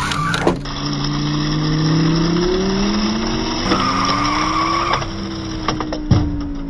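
Race car sound effect: an engine note rising in pitch again and again as if shifting up through gears, with a high tire squeal about four seconds in. A few sharp knocks are heard near the start and near the end.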